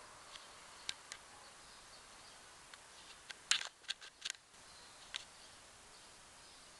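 A scattering of short, sharp clicks over a faint steady outdoor background, with a quick cluster of them around the middle.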